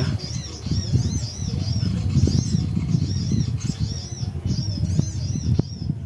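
Birds chirping rapidly: a high rising-and-falling note repeated about three times a second, over an uneven low rumble with two sharp knocks near the end.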